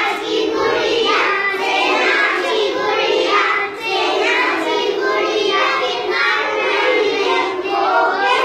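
A group of young children singing together in unison, a rhythmic classroom song.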